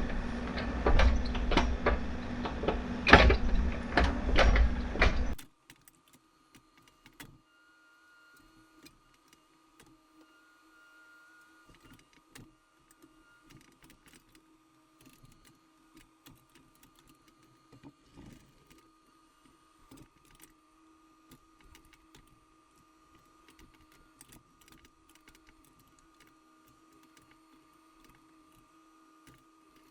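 Loud mechanical rumble with repeated sharp knocks and clanks, cutting off abruptly about five seconds in. After that a faint steady hum with scattered light ticks.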